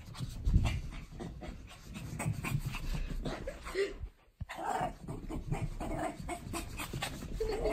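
A small Shih Tzu dog panting and scampering about on carpet, with soft thumps and knocks of movement and a few short vocal sounds. The sound cuts out briefly a little past the middle.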